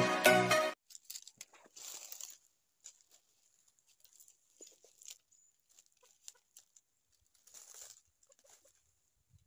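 Intro music cuts off under a second in. Then comes faint crunching of footsteps in dry leaf litter, with a few soft clucks from a decoy junglefowl cock.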